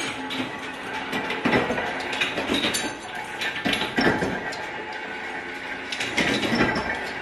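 Continuous mechanical clattering made of dense clicks, swelling louder and easing off irregularly every second or two.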